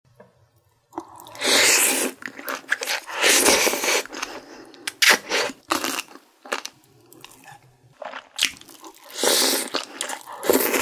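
Close-miked eating: several long loud slurps of noodles and broth from a bulgogi hot pot, with short crunchy bites and chewing in between.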